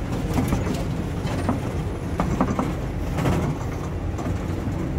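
Open-sided safari truck driving along, its engine and road noise rumbling steadily from inside the cab, with scattered knocks and rattles from the vehicle body.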